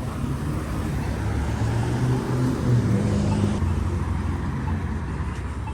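Road traffic at a street intersection: vehicle engines running and pulling away, a steady rumble with engine notes that shift and step up in pitch.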